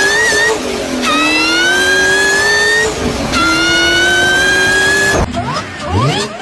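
Supercharger whine from a car accelerating hard: a loud, high whine that climbs in pitch through one gear, drops at a shift about three seconds in, and climbs again through the next. A little after five seconds it cuts to a quieter car revving in short rising sweeps.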